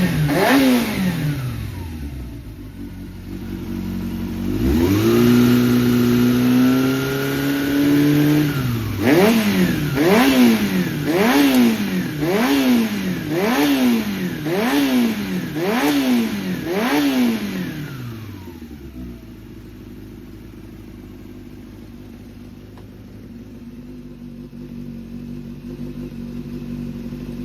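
Honda CBR400F's air-cooled inline-four engine being revved: it drops back from a rev, is held at a raised steady rev for a few seconds, then is blipped sharply eight times, about once a second, before settling to a steady idle. It runs cleanly, with no abnormal noise, as the seller describes it.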